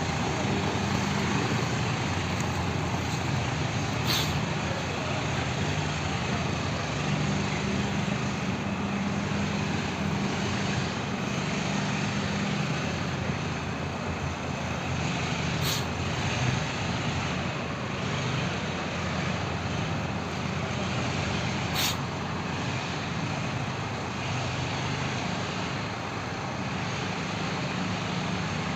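Heavy vehicle engine running steadily under a constant wash of noise, with three short sharp clicks spread out over the stretch.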